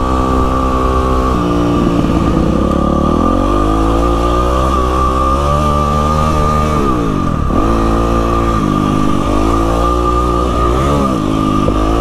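Yamaha WR450F single-cylinder four-stroke dirt bike engine running under way, its revs rising and falling with throttle and gear changes. It drops sharply and climbs again about seven seconds in.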